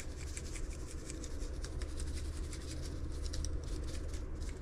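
Salt shaken from a shaker over raw fish fillets: a soft, irregular patter of fine ticks as the grains are shaken out and land.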